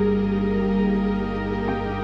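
Slow, soft background music with long sustained chords that shift about two thirds of the way through.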